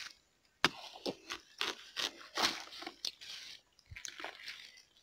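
Crunching of ripe watermelon flesh being cut and broken apart, a quick irregular series of about a dozen crunches.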